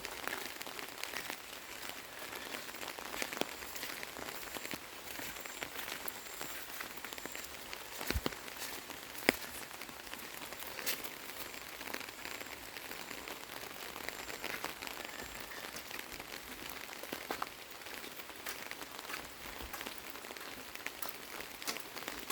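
Light rain pattering steadily, with scattered irregular drops and ticks.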